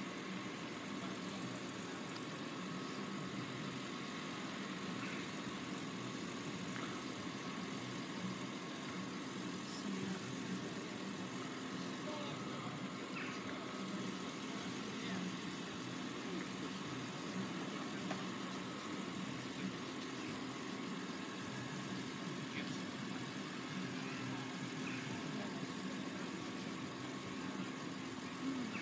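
An engine idling with a steady, unchanging hum.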